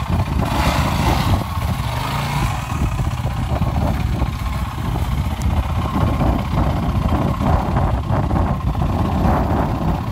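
Yamaha WR450F dirt bike's single-cylinder four-stroke engine running at low revs, the throttle opening and closing unevenly as the bike is eased through a muddy pool.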